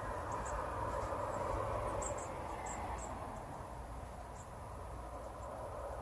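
Chickadees giving short, very high chips, several scattered through and a quick cluster a couple of seconds in, over a steady outdoor background rush.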